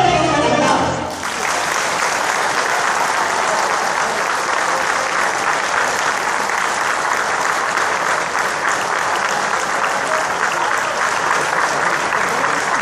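A folk orchestra's music stops about a second in, and a concert audience applauds steadily.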